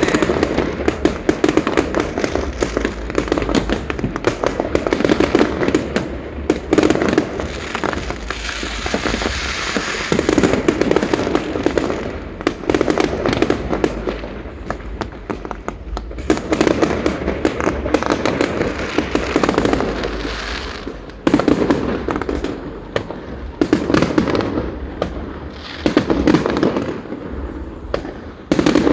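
Aerial fireworks display: a continuous barrage of crackling bursts, with heavier volleys of booms every few seconds.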